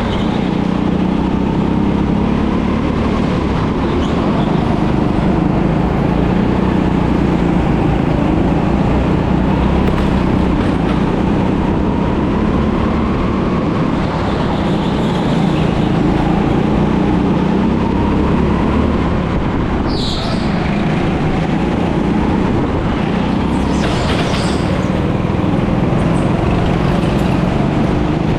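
Go-kart engine running continuously at speed, its pitch rising and falling as the throttle changes through the corners, with the rumble of the kart on the track. Two brief higher-pitched noises come through about two-thirds of the way in.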